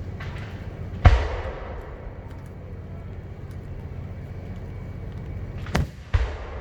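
Aerial firework shells bursting: a loud boom about a second in and two more close together near the end, each trailing off in a rolling echo, over a steady low rumble.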